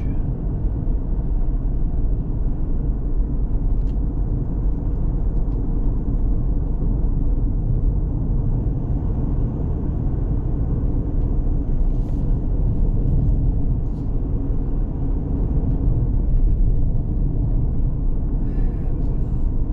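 A car driving along: a steady low rumble of road and engine noise.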